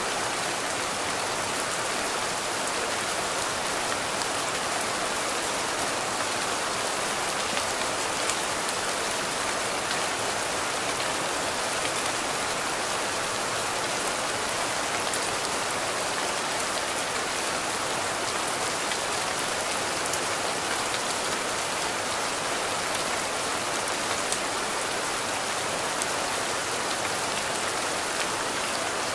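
Steady rain falling, an even hiss with scattered individual drop ticks.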